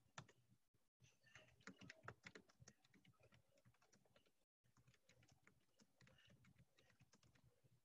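Faint typing on a computer keyboard: quick, irregular key clicks, busiest a second or two in and sparser afterwards, heard through a video call's audio that cuts out briefly twice.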